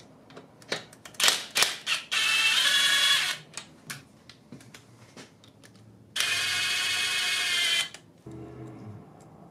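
Metal parts clinking, then a power tool running in two short bursts of a second or so each, with a steady whirring pitch.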